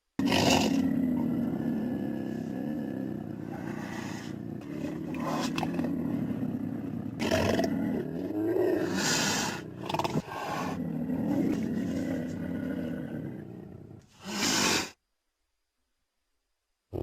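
Designed Utahraptor creature sound effect: one long, low roaring call that swells and fades several times over about fourteen seconds, then a short separate burst, followed by silence.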